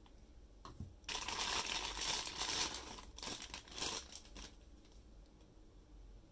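Toy figure packaging crinkling and rustling as it is handled and unwrapped, in a dense burst of about three and a half seconds that starts about a second in, with a couple of light taps just before.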